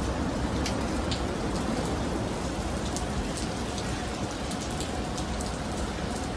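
Heavy rain falling steadily in a severe thunderstorm, with a few faint ticks.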